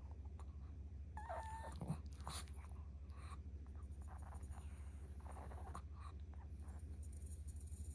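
Long-coat Chihuahua whining and whimpering through its nose, begging: one short high whine about a second in, then softer nasal whimpers.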